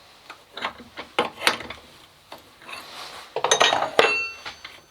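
Metal tooling clinking and rattling as it is handled during a swap to a drill on the milling machine: a few separate clinks, then a busier rattle about three and a half seconds in that ends in a sharp clink with a brief metallic ring.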